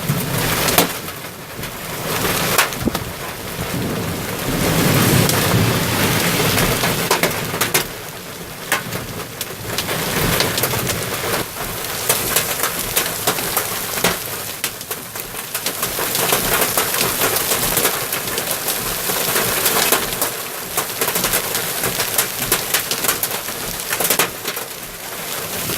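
Heavy rain pouring down in a thunderstorm, with many sharp taps of drops striking close by. A low rumble of thunder swells about five seconds in.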